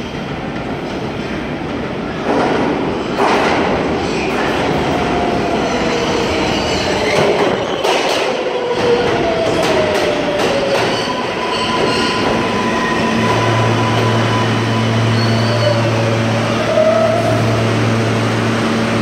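R143 subway train pulling into an underground station: rumble and clattering wheels over the rail joints, with a whine that drops in pitch as it slows. A steady low hum sets in about two-thirds of the way through as it comes to a stop.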